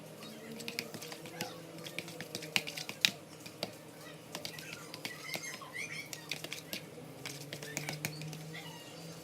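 Irregular sharp clicks and taps of small hard objects, a few a second, with the loudest pair about two and a half to three seconds in, over faint background voices.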